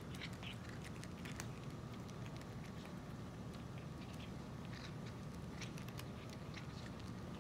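Cats crunching dry kibble: irregular small crisp crunches as they chew, over a steady low background hum.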